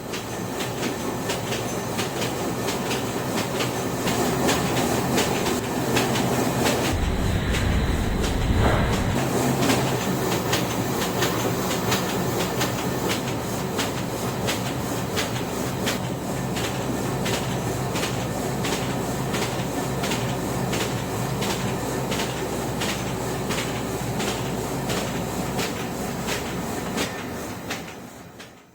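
Cardboard dressing-cup gluing machine running in production, a steady mechanical din with a fast, even clicking as it cycles. About seven seconds in, a louder low rumble rises for about two seconds. The sound fades out near the end.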